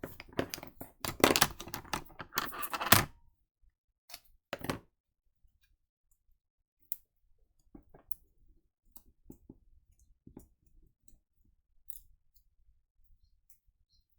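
Card stock and paper pieces being handled on a tabletop: about three seconds of loud rustling and scraping, then a few scattered light taps and clicks.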